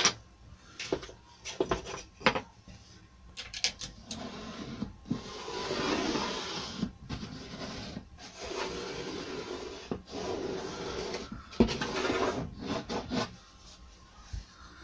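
Wood glue squeezed from a plastic bottle along the edge of a door panel, a noisy hissing stream in several long runs with short breaks. Light knocks and clicks of wood and tools come before and after it.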